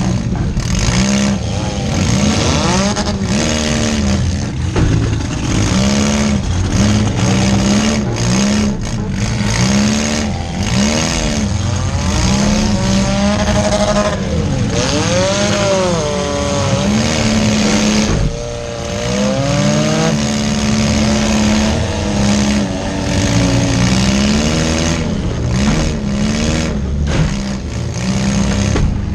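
A compact demolition derby car's engine, heard from inside the stripped cabin, revving up and down over and over as the car drives and reverses, with occasional bangs of metal hitting metal.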